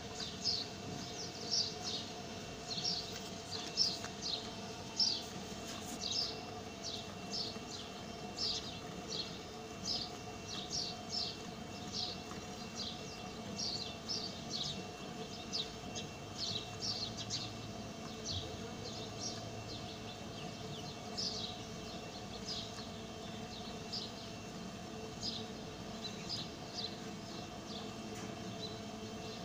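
Hand milking a cow: rhythmic squirts of milk hissing into a steel bucket, about two a second, with a short lull about two-thirds through.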